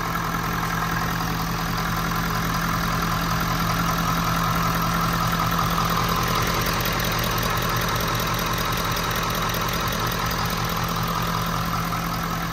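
Ford 6.7 L Power Stroke V8 turbo-diesel idling steadily, just started after a CP4 high-pressure fuel pump and injector replacement.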